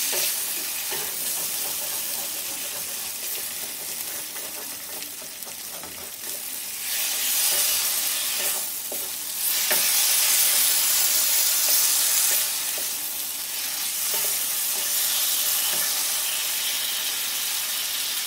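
Bottle gourd pieces frying in poppy seed and mustard paste in a metal kadai, sizzling steadily while a wooden spatula stirs them, with a few knocks of the spatula against the pan. The sizzle swells louder in stretches as the pieces are turned.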